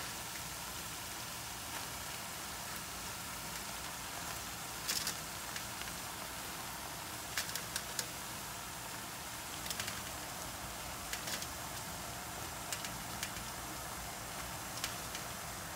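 Eggplant pieces and minced chicken frying in a pan: a steady sizzle with scattered crackles and pops.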